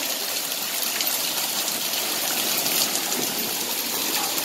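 Small hail falling steadily onto a hard floor and a rubber door mat: an even hiss of many tiny hits.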